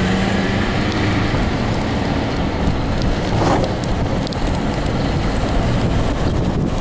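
Steady rushing noise of wheels rolling over the ground, with wind on the microphone, as the dog and its wheeled rig move along.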